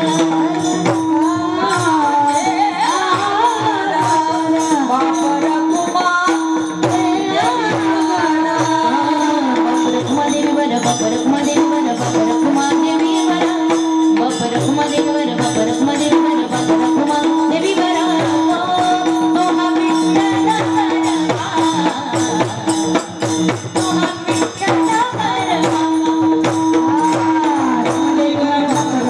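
Music: a singing voice winding over a steady held drone, with fast percussion strikes throughout.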